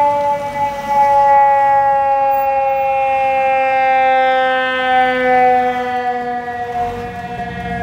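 Fire engine's siren sounding one long tone that slowly falls in pitch as it winds down. The engine's low rumble comes up near the end.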